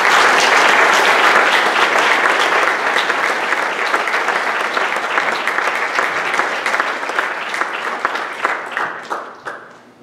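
Congregation applauding, a dense patter of many hands clapping that is loudest at first, slowly tapers off and dies out near the end.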